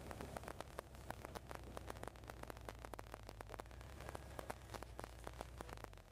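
Supercharged Corvette Z06 V8 running steadily on the road, heard from inside the cabin as a low drone, with a dense patter of irregular crackly clicks over it.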